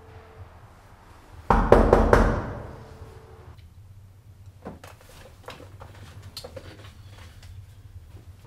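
Several heavy knocks or bangs in quick succession about a second and a half in, the loudest thing here, fading out over about a second. After that only faint small taps and clicks.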